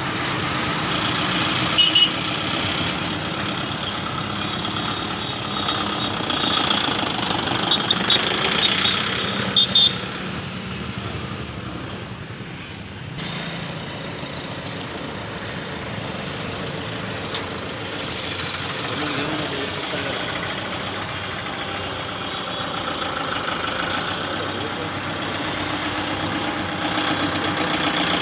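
Kubota MU5501 tractor's four-cylinder diesel engine running steadily at low revs while the tractor is driven down loading ramps off a truck. A few short, sharp high-pitched sounds cut in about two seconds in and again around eight to ten seconds in.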